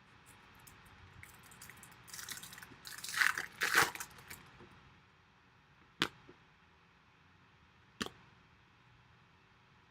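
Foil wrapper of a trading-card pack crinkling and tearing open in a burst of crackling for about two seconds, then two sharp taps a couple of seconds apart, like cards set down on the table.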